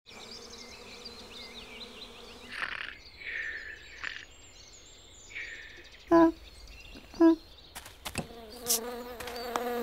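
Cartoon sound effects: a steady buzz runs under a few swishes and two short, loud pitched blips, then a buzzing tone slides down in pitch near the end.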